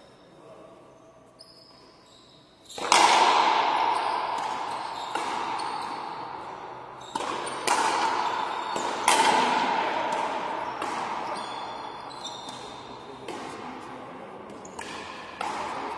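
Frontenis rally: a rubber ball struck by rackets and smacking off the front wall, sharp cracks every second or two, each ringing on in the hall's echo. The hits start about three seconds in.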